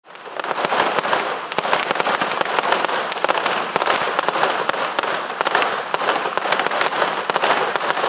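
A long string of firecrackers going off as a fast, continuous crackle of sharp pops, cutting in suddenly.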